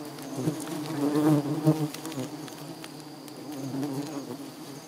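A swarm of stirred-up giant honey bees buzzing around their opened nest, making a dense, wavering drone.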